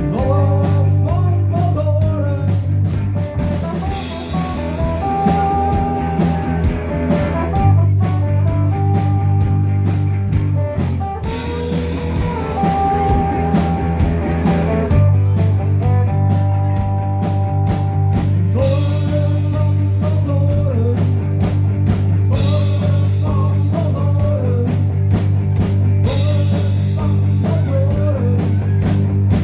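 Rock music with electric guitar, bass and drum kit, a lead line or singing voice on top, and a steady beat.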